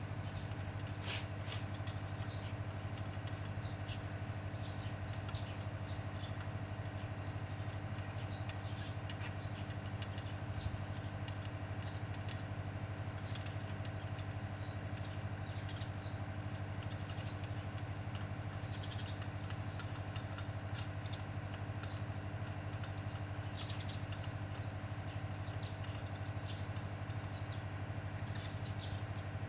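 A steady low mechanical hum that does not change, with many short, high chirps scattered over it.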